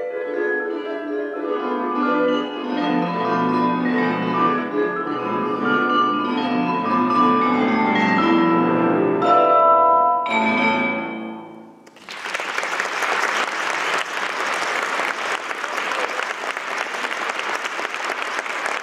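Musser vibraphone and Steinway grand piano playing the closing bars of a duet. They end on two sharp final chords about nine and ten seconds in, which ring and die away. Audience applause then starts about twelve seconds in and continues steadily.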